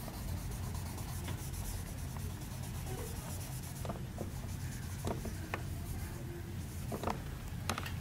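Pencil shading on paper clipped to a clipboard: steady scratchy rubbing strokes, with a few short clicks in the second half, over a low steady hum.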